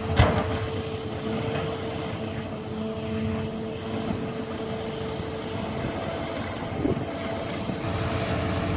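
John Deere tracked excavator's diesel engine running with a steady high hum over a low rumble while its bucket works in shallow water. A sharp knock comes just after the start, and a smaller one about seven seconds in.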